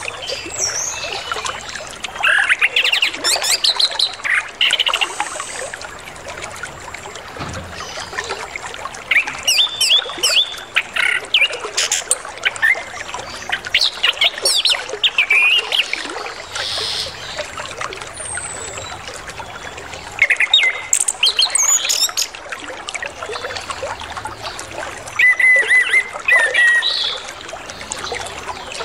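Orange-headed thrush singing a varied song full of mimicked phrases, in bursts of quick chirps and whistles with short pauses between them, over a steady trickle of flowing water.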